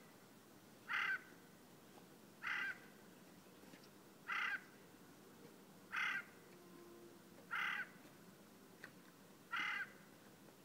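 Eurasian jay giving its harsh screeching call: six short, rasping screeches, evenly repeated about every one and a half to two seconds.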